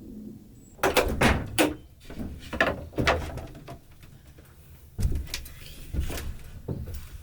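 A run of irregular knocks, clatters and scrapes starting about a second in, with a second loud cluster about five seconds in.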